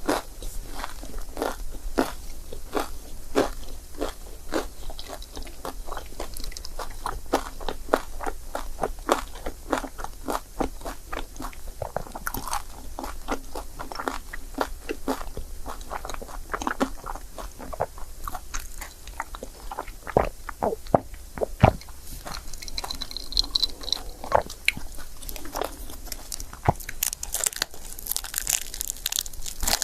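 Close-miked chewing and biting of crepe, with many sharp wet mouth clicks a few times a second.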